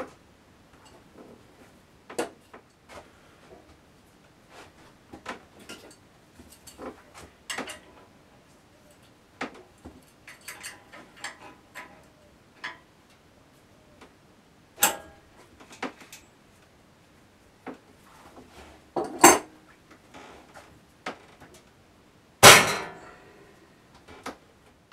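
Scattered metallic clinks and knocks from a spanner on the axle nut of a 1942 Delta 14-inch bandsaw's upper wheel while the tracking is being set, with the wheel turned by hand. The loudest knock, with a brief ring, comes near the end.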